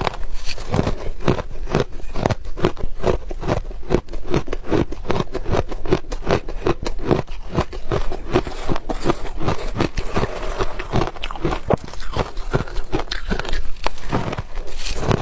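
Ice being bitten and chewed close to the microphone: dense, continuous crunching and crackling.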